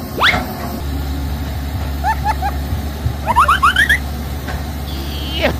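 Electric motors of a radio-controlled toy excavator humming low and steady while its arm digs. A run of quick rising chirps comes a little past three seconds in, with one rising sweep near the start and a falling one near the end.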